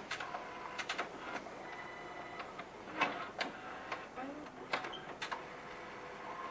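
Sony UP-DR80MD video printer running its power-up homing sequence: clunky noises from the gearing, many irregular clicks and knocks mixed with short motor whirs as its multiple motors find their home positions. This is the check that the gears no longer bind.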